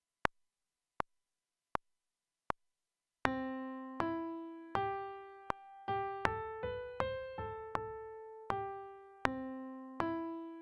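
Four evenly spaced metronome count-in clicks, then a Steinway Grand Piano software instrument playing a simple single-line melody note by note, for a melodic dictation.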